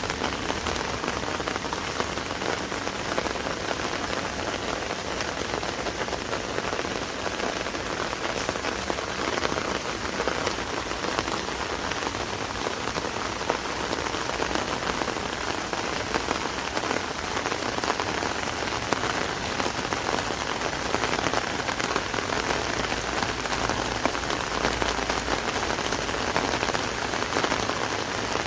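Steady rain drumming on an umbrella canopy overhead, a dense patter of drops.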